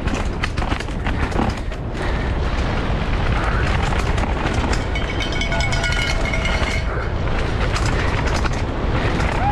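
Wind buffeting a helmet-mounted action camera's microphone as a downhill mountain bike descends fast, with the bike rattling and knocking over rough ground. Some steady high tones come in about halfway through.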